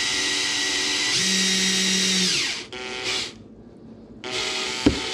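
Makita cordless drill driving screws into a wooden board. There is one long run whose pitch shifts partway through before it winds down, then two short bursts, with a sharp knock near the end.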